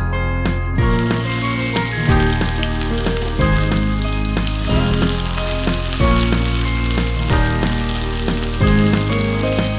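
Food frying in hot oil in a pan, a steady sizzle that starts about a second in, over background music with a repeating bass line.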